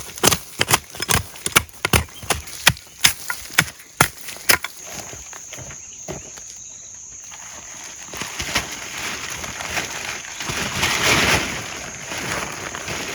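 A quick run of about a dozen sharp knocks, two or three a second, that stops about four and a half seconds in. Then a steady, high, shrill insect drone of crickets takes over, with a swell of hiss near the end.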